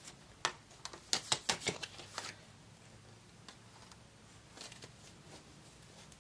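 Tarot cards being shuffled by hand to draw a clarifier card: a quick run of flicking clicks for about two seconds, then a few faint taps.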